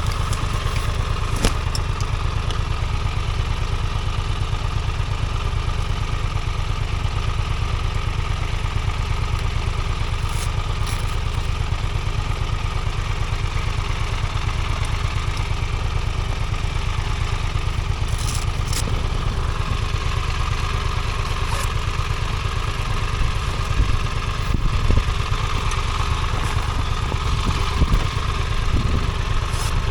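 Motorcycle engine running steadily with a low rumble, with a few light ticks.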